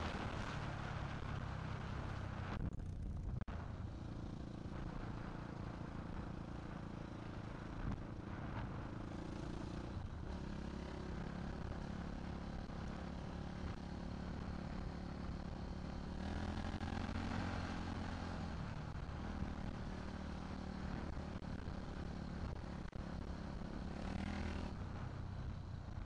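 Off-road motorcycle engine running under changing throttle as the bike is ridden, its note rising and falling, with the throttle eased briefly about three seconds in.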